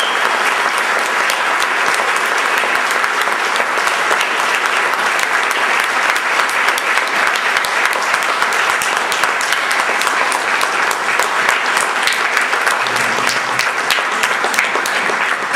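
Audience applauding, a steady dense clapping that holds at one level.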